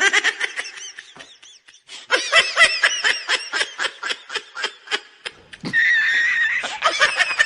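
High-pitched giggling laughter in quick bursts, about three to four a second, with one longer drawn-out squeal about six seconds in.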